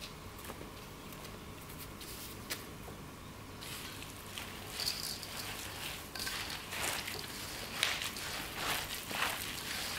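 A gloved hand squishing and mixing wet dumpling filling of chopped kimchi, chives, tofu, raw egg and flour in a stainless steel bowl. Irregular squelches start about four seconds in and grow louder.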